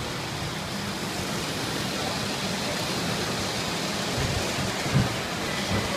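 Tinplate O gauge model trains running on metal track, a steady rattling rumble with a faint hum, and a few knocks about four and five seconds in.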